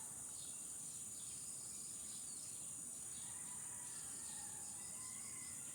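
Outdoor ambience: insects trilling in a steady high-pitched drone, with birds chirping again and again over it.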